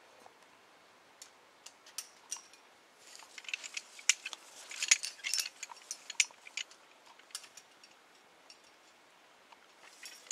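Metal climbing gear clinking and jangling: carabiners and quickdraws knocking together in a run of light clicks, busiest from about three to six seconds in, with a few more near the end.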